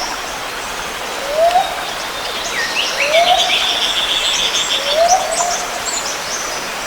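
Birdsong: a short, low call rising in pitch, repeated about every second and a half to two seconds, with higher chirps and a brief trill from other birds about halfway through.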